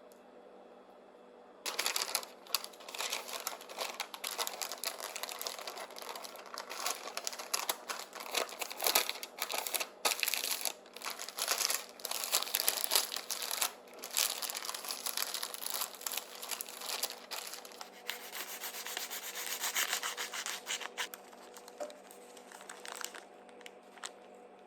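Rubbing, scraping and crinkling handling noise with many small irregular knocks. It starts about two seconds in and dies away near the end.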